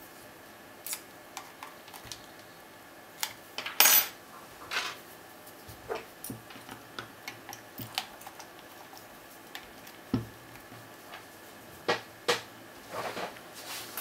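Lock-picking tools clicking and scraping against the discs and keyway of a Master disc-detainer padlock: scattered small metallic clicks and ticks at an irregular pace. The loudest click comes about four seconds in, with another cluster near the end.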